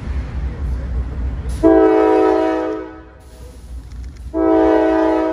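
CSX freight diesel locomotive's air horn sounding two chord blasts, the first about a second and a half in, the second near the end, over the low rumble of the approaching train.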